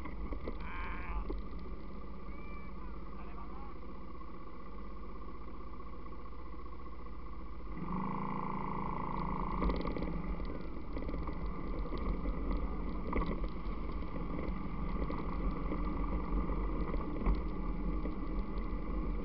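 ATV engine running steadily while riding along a rough dirt trail, with a low rumble of wind and vibration on the microphone. About eight seconds in, the engine gets louder as it takes more throttle, and a few knocks from the rough ground come through.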